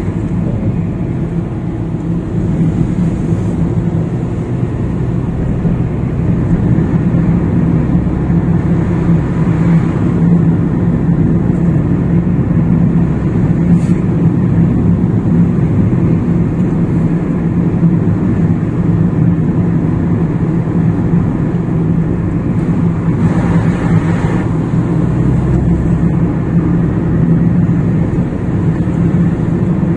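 Car cabin noise while driving along a village road: a steady low engine drone with tyre and road noise. A brief louder rush comes about 23 seconds in.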